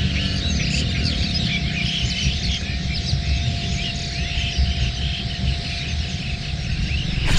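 A dense chorus of many small birds chirping over each other, with a steady low rumble and a faint steady hum underneath.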